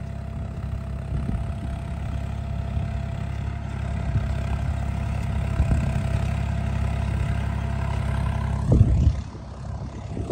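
Swaraj 963 FE 4WD tractor's diesel engine running steadily under heavy load while pulling a deep-set three-bottom mouldboard plough through the soil. About nine seconds in there is a loud thump, after which the engine is heard more faintly.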